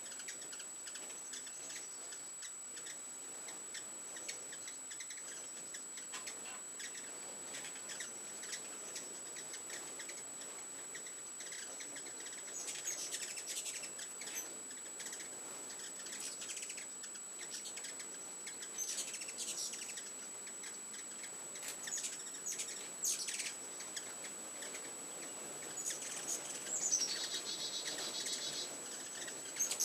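Ruby-throated hummingbirds giving high, squeaky chips and chitters in scattered short bursts, busier in the second half, with a quick run of repeated notes near the end.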